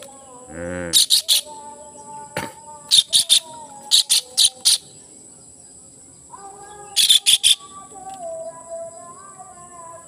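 A kingfisher caught in a net trap gives harsh, screeching distress calls in quick runs of three to five, with one lower, drawn-out squawk just before the first run. Crickets trill steadily and high underneath.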